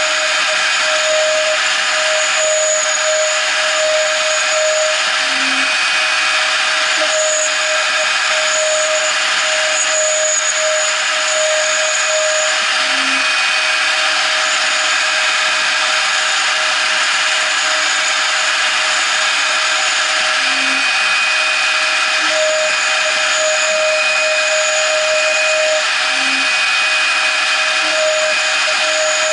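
CNC router's 0.75 kW spindle running a 2 mm end mill through aluminium angle, a steady high whine over a constant rushing noise that does not let up.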